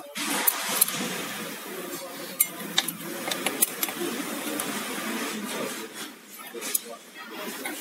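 Sharp metallic clicks and light clinks of automatic-transmission clutch discs, steel plates and friction discs, being handled and set into a clutch pack, over a steady rustling hiss.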